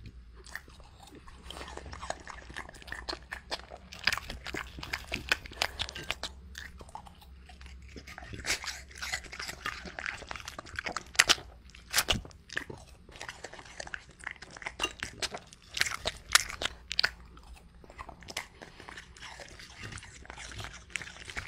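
French Bulldog biting and chewing apple, with loud, irregular wet crunches, the sharpest about 11 and 12 seconds in.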